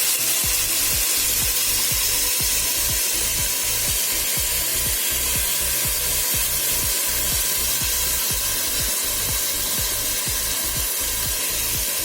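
Mutton, chopped onion and coriander frying in hot oil in a pressure cooker, a steady sizzle throughout, with background music underneath.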